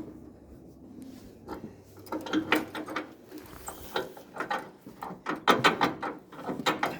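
Irregular clicks and knocks from the floating dock steps as they are worked. The clicks start sparse and come thicker toward the end.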